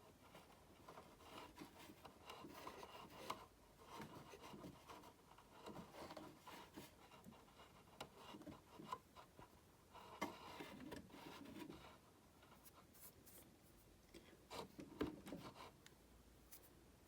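Faint, irregular rubbing and scraping with light clicks, as hands handle parts of a coffee machine while greasing its drive. There are louder clusters about ten seconds in and again near the end.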